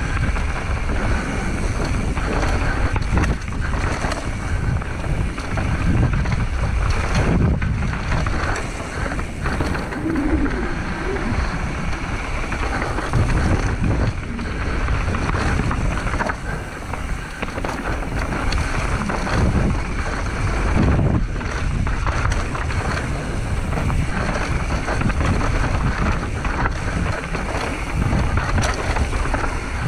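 Wind rushing over the microphone of a camera riding on a mountain bike as it descends a trail, with steady tyre rumble and frequent short rattles and knocks from the bike over rough ground.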